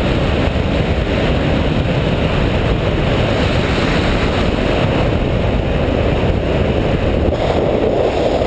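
Steady rush of wind on a motorcycle-mounted camera's microphone at road speed, mixed with the motorcycle's engine and tyre noise.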